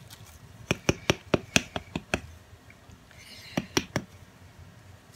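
A ridged wooden paddle slapping a hollow clay sculpture head to smooth its lumps. There is a quick run of about seven sharp taps, then two more after a short pause.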